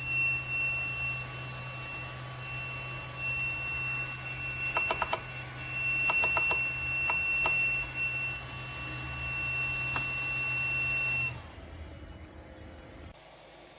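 3D printer running with a steady high electronic whine over a low hum, broken by a few clusters of small clicks near the middle. About eleven seconds in the whine stops with a short falling glide, leaving only a faint hiss.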